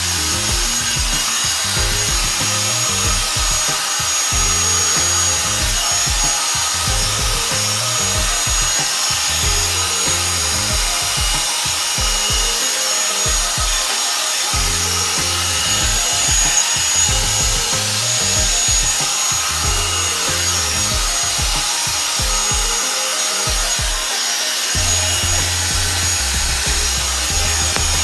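Revlon One-Step hair dryer brush running steadily: a constant rush of blown air with a thin high motor whine, over background music with a deep bass line.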